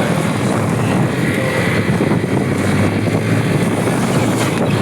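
Motorcycle engine running steadily while riding, with air rushing past the microphone.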